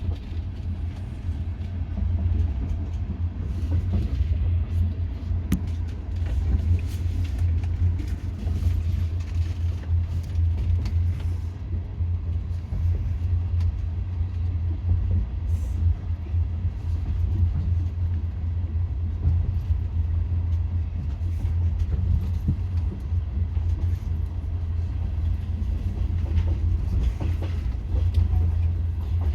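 Passenger train running on rails, heard from inside the carriage: a steady low rumble with the clack of the wheels over the rail joints.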